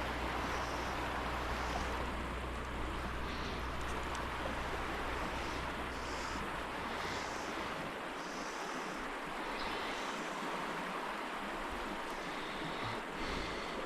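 Steady rushing of stream water. A low rumble underneath it drops away about halfway through.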